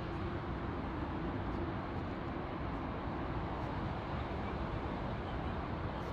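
Steady rumble of jet airliner engines, with a faint hum that fades out a second or two in.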